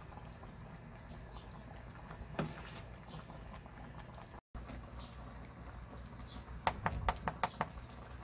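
Cooking sounds at a table over a low steady rumble: a soft knock about two seconds in, then a quick run of sharp taps near the end, about seven in under a second.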